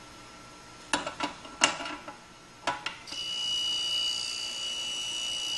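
Drill chuck knocked and clicked into the split-point port of a Darex XT3000 drill sharpener, four short knocks. About three seconds in, the sharpener starts running with a steady high whine as its wheel grinds the split point on the drill.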